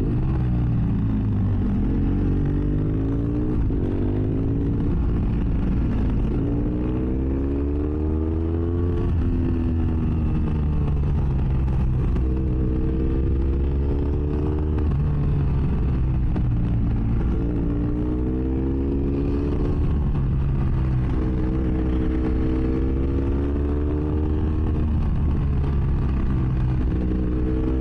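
BMW F800S parallel-twin engine through an open GPR Furore exhaust with its dB-killer removed, heard from inside the rider's helmet. It accelerates hard again and again, the pitch rising over a couple of seconds and then falling as the throttle closes, about six times.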